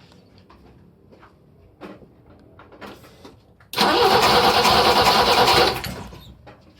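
BMW E28 518i four-cylinder engine turned over by the starter motor for about two seconds, then stopping, without catching. The car is a no-start being checked for spark, and no spark has been seen.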